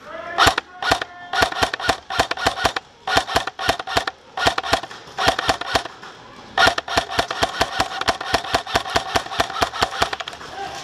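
Airsoft electric rifle (Magpul PTS Masada CQB) firing full-auto bursts of about nine shots a second, with the gearbox motor whining under each burst. There are five bursts, and the longest runs about three seconds starting past halfway.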